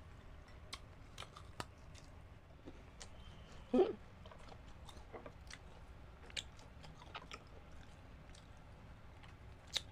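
Close-up eating sounds: crisp bites and chewing of mango slices topped with bagoong, with scattered short wet clicks and crackles. A brief louder sound about four seconds in and a sharp click near the end.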